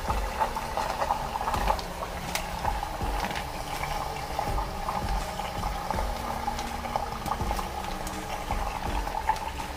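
Sous vide immersion circulator running in a tall pot of water at its set temperature, its pump churning and bubbling the water with a steady hum. A few light crinkles and splashes come as a plastic-bagged T-bone steak is lowered into the water.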